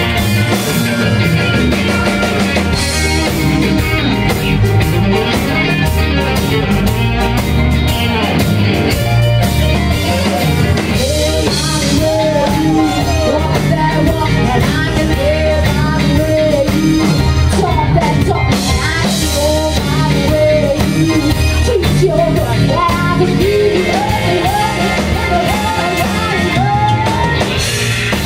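Live rhythm-and-blues band playing: drum kit, bass and electric guitar under a woman singing, steady and loud throughout.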